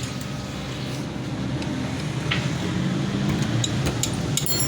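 Steady low engine rumble of road traffic, growing a little louder, with a few sharp clicks about two seconds in and near the end.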